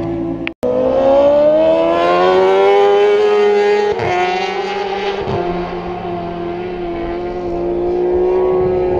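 Racing superbike engines howling at high revs. After a brief dropout just after the start, the pitch climbs for about three seconds, drops sharply about four seconds in, then holds steadier.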